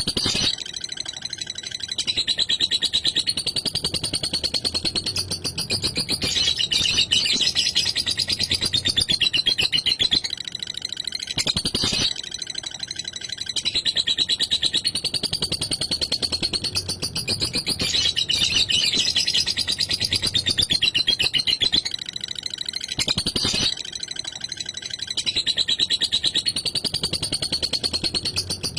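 Lovebird singing its 'ngekek': a long, fast, high-pitched chattering trill, coming in bouts of several seconds with short breaks between.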